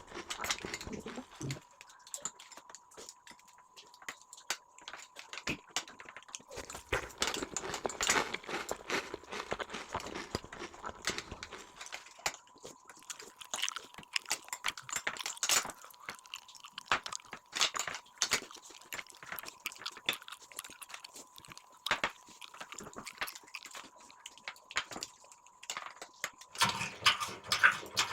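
Close-miked eating: irregular chewing and crunching with small clicks of utensils on a plate.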